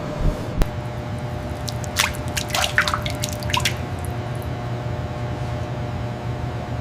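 A quick run of small drips or plinks, about two to three and a half seconds in, over a steady low hum.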